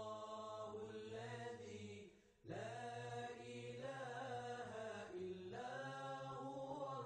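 Background music: a slow chanting voice holding long notes, breaking off briefly about two seconds in before a new phrase begins.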